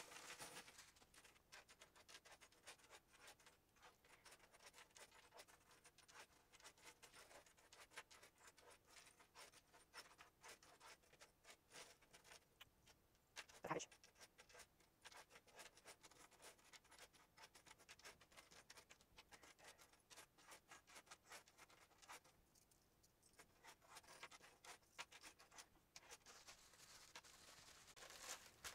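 Faint clinking and scraping of loose nickel-finish metal swivel clasps being slid around and spread out by hand on a cutting mat, with one louder clink about halfway through.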